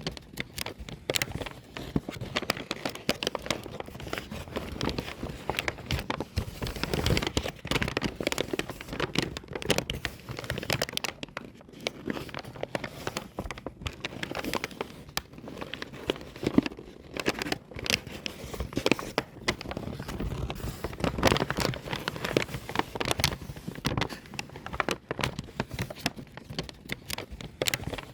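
A paper bag being crumpled by hand: dense, irregular crinkling and crackling that keeps going with no pauses.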